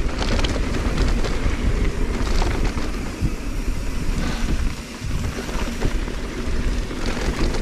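Wind buffeting the microphone and a mountain bike's tyres rolling over a dirt trail, a steady rumble with scattered clicks and rattles.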